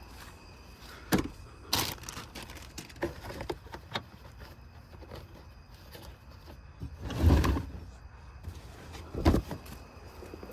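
Knocks, clicks and clunks of car interior parts being handled and fitted, with a heavy thud about seven seconds in and a sharp knock about two seconds later.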